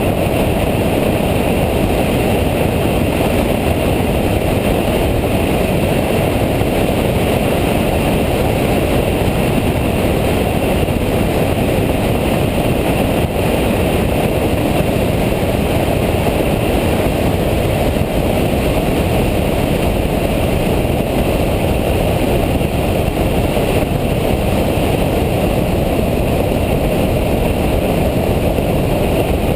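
Nissan Nismo track car running at a steady pace, engine and road noise heard from inside the cabin, with no change in pitch.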